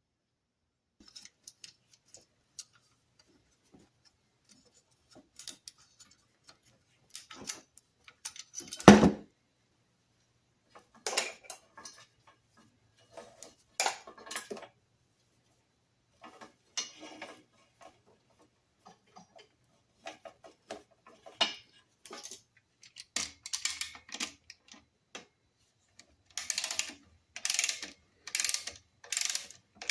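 Metal parts and hand tools being handled: scattered clicks and clinks, with one heavy clunk about nine seconds in. Near the end come four short bursts less than a second apart.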